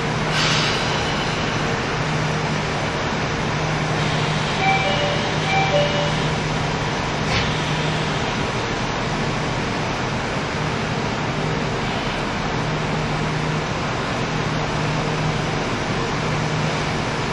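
KiHa 75 diesel railcar heard from inside the car at a station stop: the diesel engine idles with a steady low hum. About five seconds in, a short two-note chime sounds twice.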